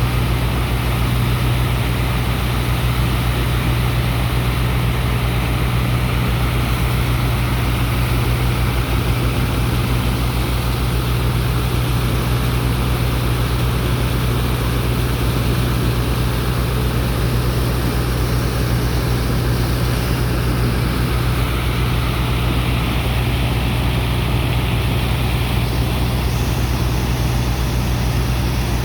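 A sand dredger's engines and pump running steadily as it unloads sand: a low, even drone with a broad rushing noise over it.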